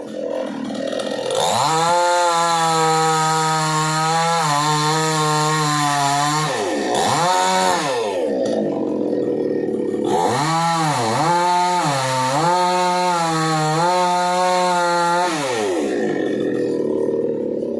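Chainsaw running at high revs while cutting, its pitch dipping and recovering several times as the load changes, with a brief drop and rise near the middle.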